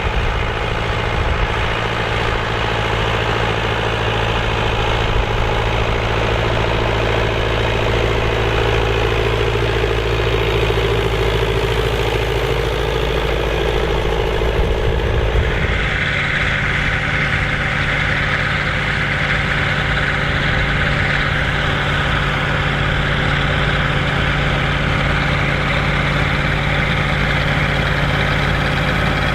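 Massey Ferguson 135 tractor engine running steadily while pulling a four-furrow plough. About halfway through, the sound changes abruptly, with a higher whine coming in over the engine.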